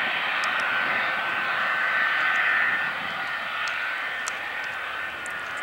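Lockheed P-2V Neptune air tanker's piston-and-jet engines running as it moves along the runway: a steady engine noise with a thin steady high whine, growing fainter after about three seconds as the aircraft draws away.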